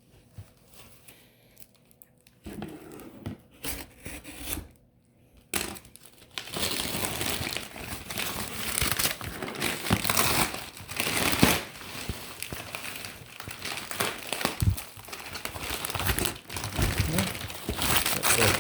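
Plastic wrapping crinkling and tearing as it is handled and pulled off a package by hand, starting with scattered rustles and becoming a loud, continuous crackle from about six seconds in.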